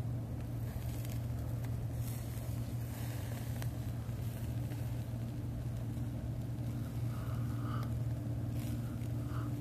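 A steady low mechanical hum, like an engine or motor running, with a few faint crackles.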